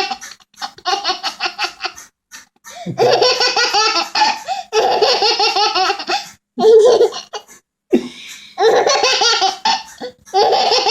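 Little girl laughing hard in about six fits of rapid, breathy belly laughs, separated by short pauses.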